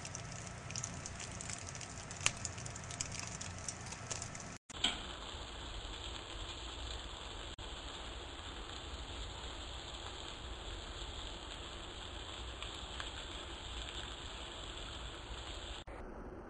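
Egg-soaked, sugar-dredged bread sizzling in a foil-lined frying pan: a crackle of many small pops for the first few seconds, then, after a brief break, a steady hiss.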